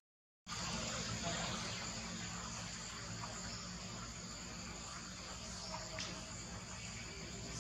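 Steady high-pitched chorus of insects such as crickets or cicadas, the sound cutting out completely for a moment at the very start.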